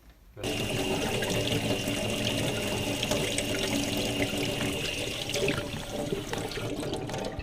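Water running from a tap into a sink, starting suddenly about half a second in and then running steadily.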